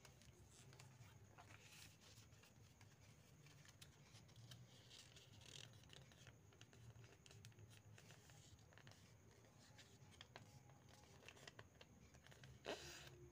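Faint rustling and creasing of a sheet of lined notebook paper being folded by hand, with light scattered taps and a slightly louder swish near the end.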